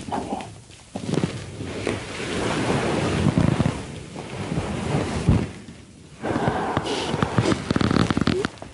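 Bedcovers and pillows rustling close to the microphone as two people shift under a duvet. The noise comes in bursts, with brief lulls about four and six seconds in.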